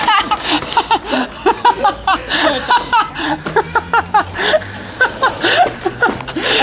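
People laughing hard, a long run of quick chuckles and snickers.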